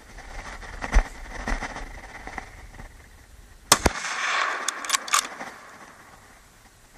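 Hunting rifle gunshots in a wild boar hunt: a sharp shot about a second in and a couple of fainter cracks, then the loudest pair of shots in quick succession just past halfway, followed by a few more quick cracks.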